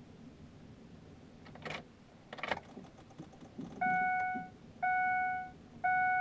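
Keys jangle briefly twice, then a car's warning chime starts, a steady beep repeating about once a second.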